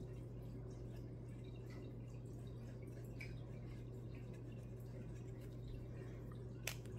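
Faint light ticks and scratches of an alcohol marker colouring on cardstock over a steady low electrical hum, with a sharper tap near the end.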